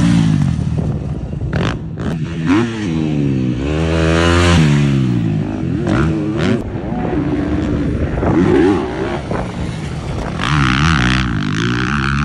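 Motocross bike engines revving, their pitch climbing and falling again and again as the bikes accelerate and back off.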